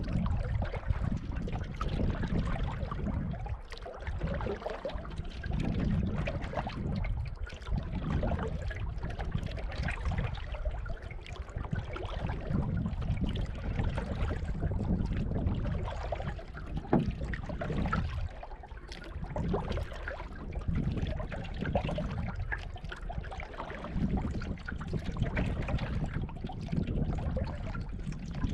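Canoe being paddled across a lake: water swishing and trickling around the hull and paddle, swelling and easing in a rhythm of roughly one stroke every two seconds.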